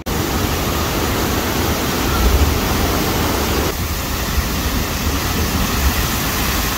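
Artificial geyser fountain jetting water: a loud, steady rush of spray and splashing water, with a slight shift in the sound a little over halfway through.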